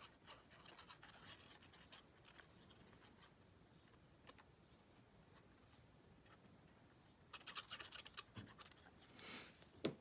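Mostly near silence, with faint scratching and rustling of a small paper die-cut being handled and glued by hand; a quick run of light scratches comes in the last few seconds.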